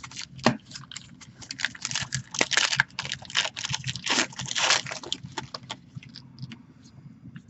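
Plastic wrapper of a Panini 2016 Classics football card pack being torn open and crinkled by hand: a dense run of crackles that thins out about six seconds in.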